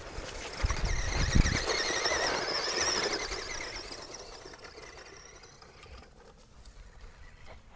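Tamiya Sand Rover RC buggy's brushed electric motor and gears whining as it drives past, the pitch wavering with the throttle. A few low thumps come about a second in, and the whine fades as the buggy drives off.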